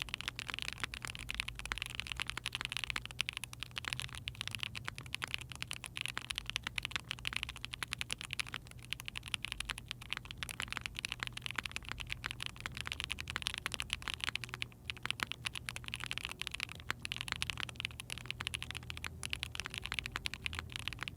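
Continuous fast typing on a mechanical keyboard fitted with Gateron Pure Berry long-pole linear switches, factory-lubed with 62 g springs, in an Ai03 Vega with a POM plate and GMK keycaps. It is a dense, even stream of key clacks with a soft long-pole bottom-out and a lower-pitched, clean tone.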